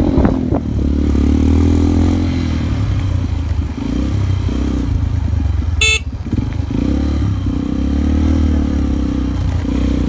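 Honda XR125 single-cylinder four-stroke motorcycle engine running on a dirt trail, its engine speed rising and falling. A single short, sharp high-pitched sound about six seconds in.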